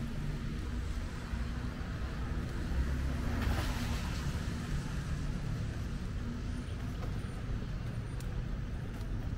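Street traffic on rain-wet downtown roads: a steady low engine rumble, with a vehicle hissing past about three and a half seconds in.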